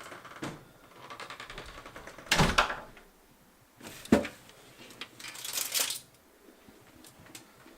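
Handling noises: scattered clicks, a loud scraping rustle, a single sharp thunk about four seconds in, and a higher hissing scrape soon after.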